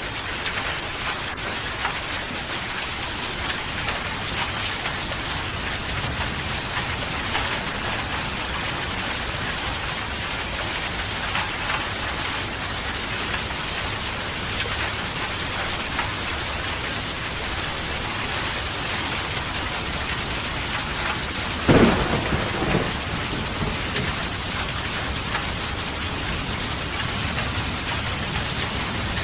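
Steady rain falling, with a sudden short thunderclap about three-quarters of the way through and a smaller rumble just after it.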